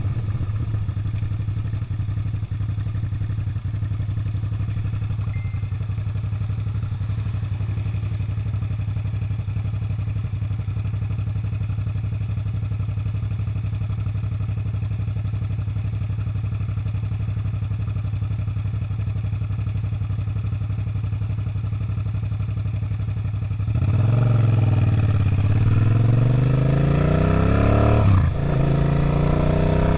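Suzuki SV650's 90-degree V-twin engine holding a steady low note, likely idling at a stop. About 24 s in, it revs up and the bike pulls away, pitch rising, with a short drop near the end for a gear change before the note climbs again.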